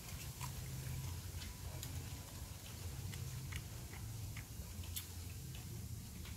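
A person eating and chewing, with scattered short crisp clicks and crunches from the bites, over a steady low hum.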